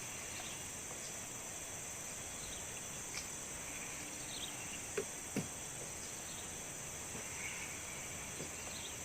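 Steady high-pitched chorus of insects, with a few short light clicks or taps about three and five seconds in.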